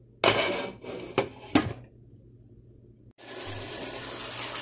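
Glass lid set onto a metal cooking pot of curry: a rattle against the rim, then two sharp clinks about half a second apart. About three seconds in, a steady hiss of the covered curry simmering begins.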